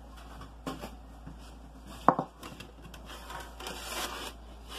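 Cloth being spread and rubbed across a wooden board, with a few light knocks and one sharp knock about two seconds in, then a stretch of fabric rustling.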